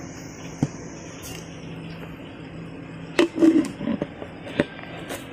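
A steady low background hum, with a single sharp click early and a cluster of light knocks and clicks a little past the middle, like things being handled and set down.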